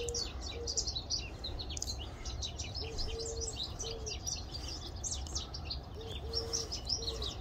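Small birds chirping and twittering without a break. A low three-note cooing call (short, long, short) sounds twice, about 3 and 6 seconds in.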